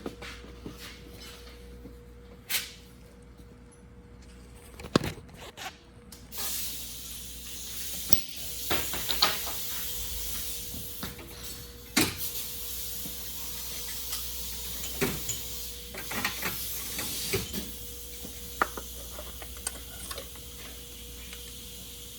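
Scattered clicks and knocks of tools and parts being handled at the engine, with a steady hiss setting in about six seconds in and continuing under them.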